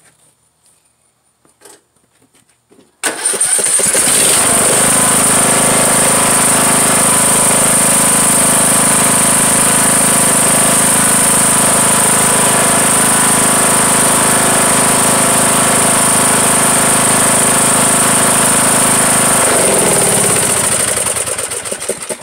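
Briggs & Stratton Intek 20 OHV engine of a Craftsman LT2000 lawn tractor starting suddenly about three seconds in, then running steadily at a constant speed. Near the end its pitch falls as it slows and shuts off.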